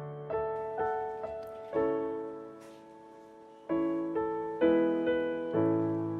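Piano playing a slow instrumental introduction: single notes and chords struck one at a time, each fading out, with a short pause near the middle.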